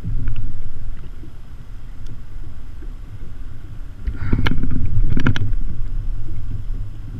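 Low rumble of wind and water on a kayak-mounted action camera's microphone. A few sharp knocks and rattles come about four to five seconds in.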